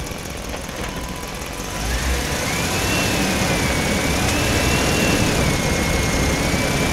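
Radio-controlled model truck loaded with logs driving off. Its motor whine rises in pitch about two seconds in and wavers up and down over a steady low rumble.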